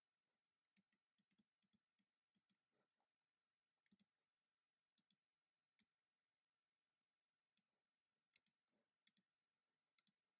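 Faint computer keyboard typing: irregular key clicks in short runs, with pauses between them.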